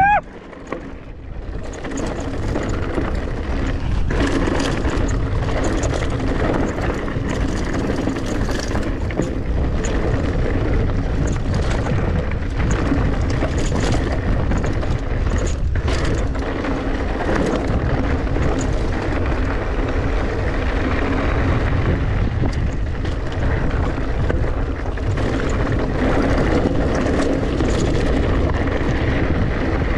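A mountain bike riding a dirt trail: wind rushing over the microphone with a steady rumble of tyres and frame, broken by frequent small knocks and rattles. Quieter for the first second or two, then steady.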